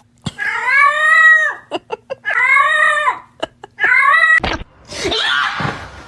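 A cat yowling: three long drawn-out calls, each rising and then falling in pitch, followed near the end by a harsher, noisier cry.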